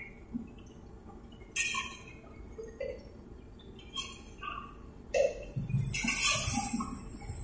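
Battered tofu deep-frying in a wok of hot oil, with a metal spatula clinking against the aluminium wok a few times as the pieces are stirred, and a louder stretch of sizzling noise near the end.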